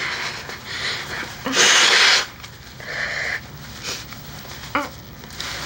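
A young woman crying quietly: shaky breaths and sniffles, with one loud sniff about one and a half seconds in.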